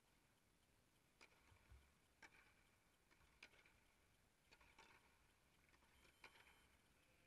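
Faint tennis rally: a ball struck by rackets and bouncing on a clay court, heard as about six sharp pops roughly a second apart, some with a short echo under the air dome.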